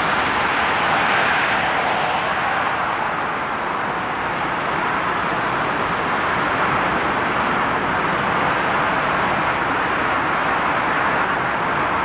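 Airbus A380's four Rolls-Royce Trent 900 jet engines running as the airliner rolls along the runway: a steady, even rushing noise, with a higher hiss that fades over the first few seconds.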